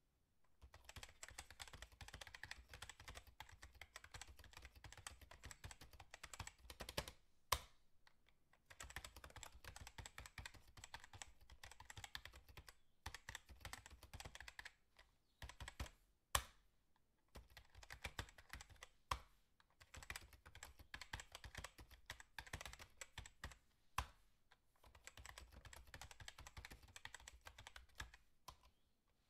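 Faint, rapid clicking in stretches of a few seconds with short pauses between, broken by a few single sharper clicks.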